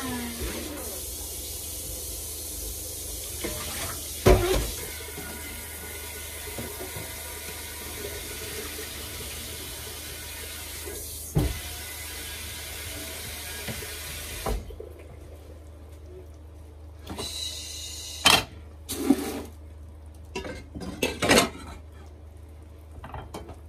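Kitchen tap running steadily into the sink, with a couple of knocks, then shut off suddenly about fifteen seconds in. Several sharp clatters of kitchenware follow.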